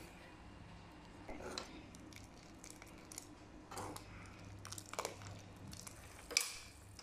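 Wooden spoon and ladle stirring thin sambar in a non-stick pan: a few short, soft scraping and sloshing strokes, the loudest near the end. Under them runs a faint low hum.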